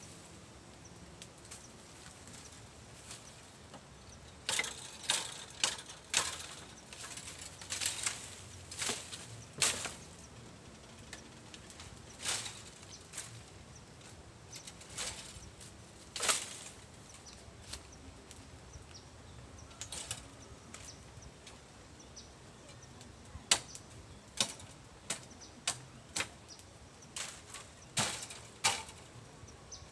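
Dry bamboo leaves and twigs crackling and snapping in irregular sharp cracks, some loud, bunched in two busy spells with a sparser stretch in the middle.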